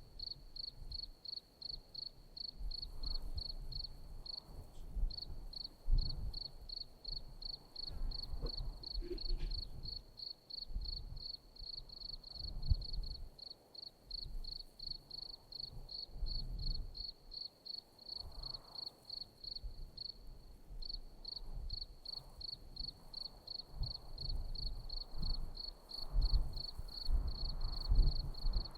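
A cricket chirping steadily in a high pitch, about four chirps a second, twice briefly running into an unbroken trill. Soft low thuds and rustling sound underneath.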